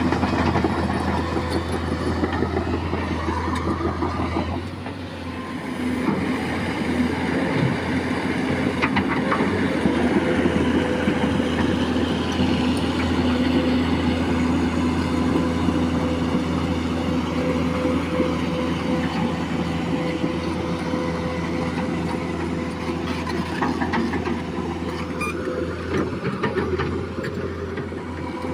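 Liugong crawler excavator travelling, its diesel engine running steadily under a continuous clanking rattle from the steel tracks. The sound dips briefly about five seconds in.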